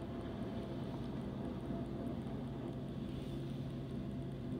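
Steady low rumble and engine hum of a train passing at a distance, with no change in level.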